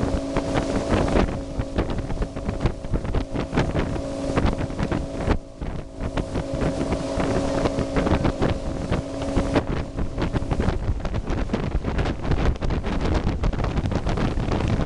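Motorboat under way, its engine giving a steady hum under heavy wind buffeting on the microphone; the engine's hum fades out about ten seconds in while the wind noise continues.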